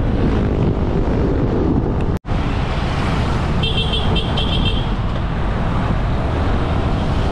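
Steady rumble of a moving vehicle with road and wind noise, broken by a sudden brief dropout about two seconds in. Partway through, a quick run of short high beeps from a vehicle horn sounds in traffic.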